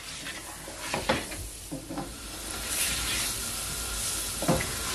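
Diced potato, carrot and sweet pepper sizzling in hot curry oil in a frying pan, with a spatula scraping and knocking against the pan a few times as the vegetables are stirred.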